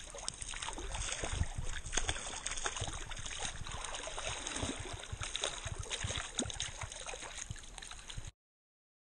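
Creek water splashing and sloshing as a hooked trout thrashes at the surface and is brought in, with many small knocks and splashes over the rush of the stream. The sound cuts off abruptly near the end.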